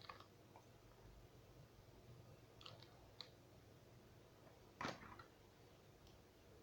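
Near silence: room tone with a few faint clicks, one sharper click about five seconds in.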